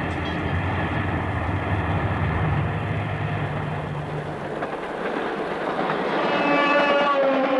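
A train passing with a steady low rumble, then its horn sounding for the last second and a half, sagging slightly in pitch.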